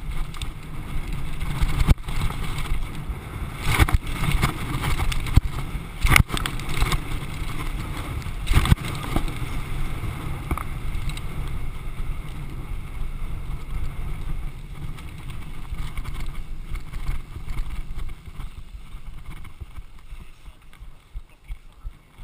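Downhill mountain bike rattling and jolting over rough rocky ground, with wind rushing over the microphone and sharp knocks from hits about 2, 6 and 9 seconds in. The noise eases near the end as the bike rolls out to a stop on grass.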